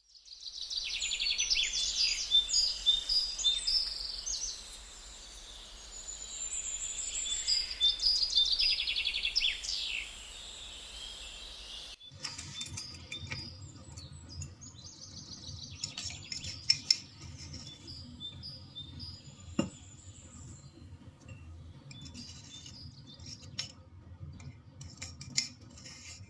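Small birds chirping and singing, loud and busy for the first half; after a sudden cut halfway, fainter birdsong goes on with scattered light knocks and clinks and one sharp click.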